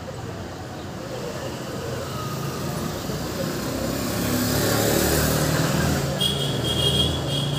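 Street traffic: a motor vehicle passes close by, its engine and road noise swelling to a peak about five seconds in, with a steady low engine hum continuing after it.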